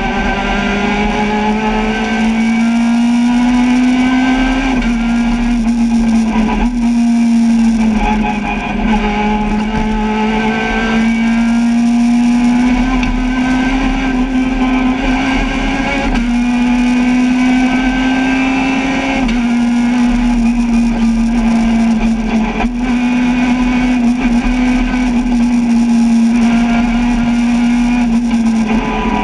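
Peugeot 106 rally car engine heard from inside the cabin, running hard at high revs on a stage. Its pitch climbs slowly and dips briefly about eight times as the driver shifts or lifts.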